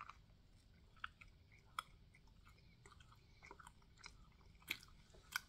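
Faint close-up chewing of a toasted breakfast sandwich, with a handful of short, sharp mouth clicks; the loudest come near the end.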